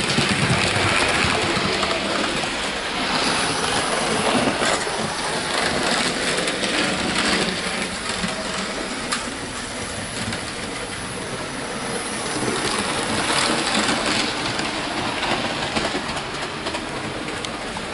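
Hornby model trains, HST power cars and an A4 locomotive, running on the track together: a steady rumble of wheels and motors, with a few clicks over rail joints.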